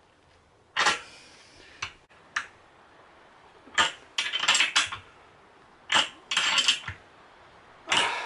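Steel spanners clinking on nuts, bolts and washers while nylock nuts are tightened onto vice mounting bolts. Sharp metallic clinks come singly about a second apart, then in two short runs of quick clinks a little past the middle, with one more near the end.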